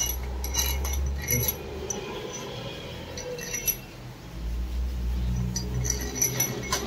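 Steel cylinder-head bolts for a Suzuki Brezza 1.3-litre diesel engine clinking together in the hand and against the cylinder head as they are set into their holes: a scatter of short metallic clinks, grouped near the start, once in the middle and again near the end.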